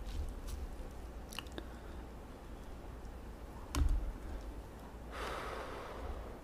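Close-miked eating sounds: quiet chewing and a few small clicks, with a low thump a little past halfway. About five seconds in, a breathy rush of air lasting about a second, a puff of breath blown over hot ramyun noodles held up on chopsticks.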